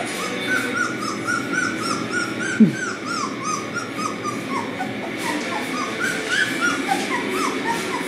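Beagle puppies whimpering, a quick string of short high squeaks at about three or four a second, with one louder low falling cry about two and a half seconds in.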